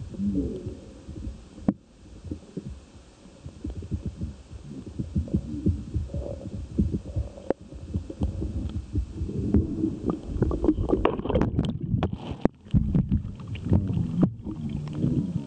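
Underwater camera knocking and bumping in the water, giving an irregular low thumping rumble. From about ten seconds in it is hauled up through the surface, with sharper splashing and dripping crackles as it comes out of the water.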